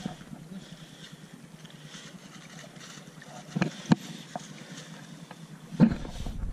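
Open-air wind and water noise on a rocky sea shore, with a few sharp knocks: two close together about three and a half to four seconds in, and a louder one near six seconds.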